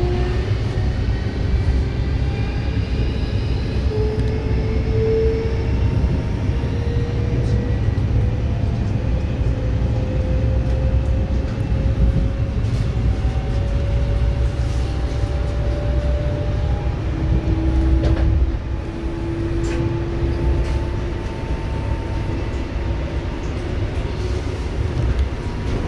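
ES2G Lastochka (Siemens Desiro RUS) electric train running between stations: a steady low rumble of wheels on track, with the traction motors' whine slowly rising in pitch as the train gathers speed. About two-thirds of the way through, the whine restarts at a lower pitch and the rumble drops slightly.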